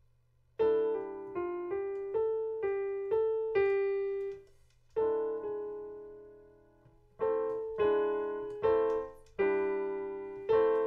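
Piano playing a short melody in a minor key over sustained lower notes, built on a minor scale with an altered seventh. It comes as two phrases of single struck notes, about two a second, with a held note and a brief pause between them.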